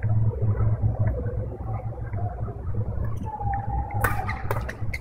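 Steady low rumble of sports-hall background noise with faint distant voices. About three seconds in comes a drawn-out squeak, then two sharp cracks about half a second apart near the end: badminton rackets striking a shuttlecock.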